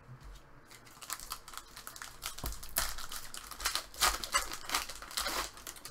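Crinkling and crackling of a hockey card pack's wrapper being handled and opened: a string of short, sharp crackles from about a second in.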